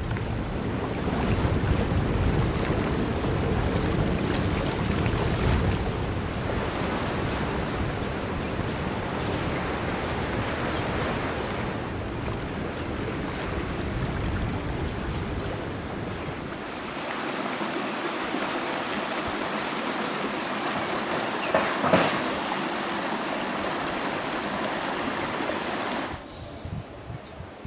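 Wind and sea water rushing and splashing around a sailboat under way, with a heavy low rumble in the first part and one brief louder noise about three-quarters of the way through. Near the end the rushing cuts off, leaving a much quieter background.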